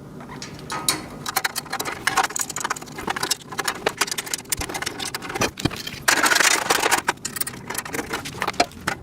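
Small metal hardware clicking and rattling as parts of a metal storage rack are fitted and fastened by hand, with a rapid run of clicks throughout and a denser rasping stretch of about a second six seconds in.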